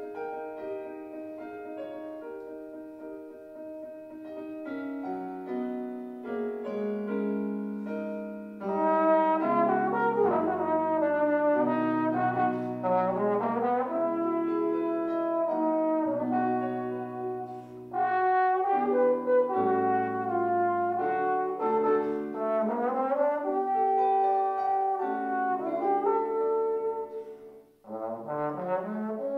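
Trombone playing a classical solo line over piano accompaniment, quieter at first and fuller from about a third of the way in. The music breaks off briefly near the end and starts again.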